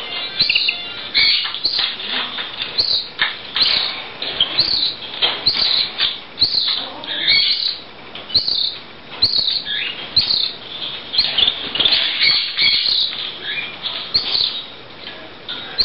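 Canary chick begging for food: repeated high, insistent chirps, about two a second, with wings fluttering between them.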